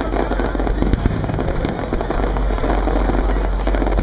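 Aerial fireworks display with shells bursting one after another: a dense, unbroken din of booms and crackle.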